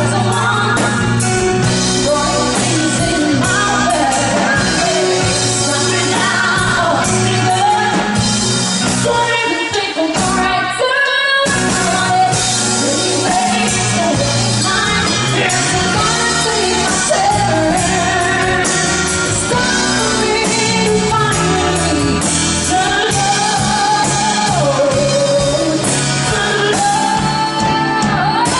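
Band playing a pop ballad with a lead vocalist singing over bass, drums and keys; the bass and drums drop out for about a second near ten seconds in, then the full band comes back.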